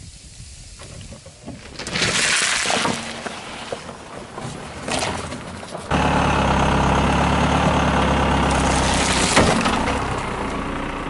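A car tyre rolling over objects on asphalt and crushing them, with noisy crunching and splatting in the first half. After a sudden change about six seconds in, the car's engine runs steadily close by as the tyre crushes an M&M-covered ice-cream cone, with a sharp crunch about nine seconds in.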